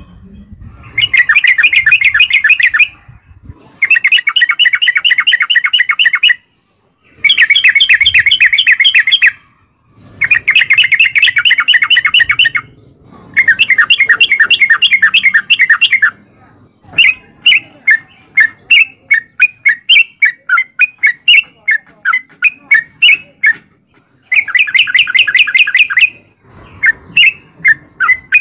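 Yellow-vented bulbul singing: long rapid bubbly phrases of about two seconds each, separated by short pauses. Partway through it switches to a run of separate quick chirps, two to three a second, then gives one more long phrase near the end.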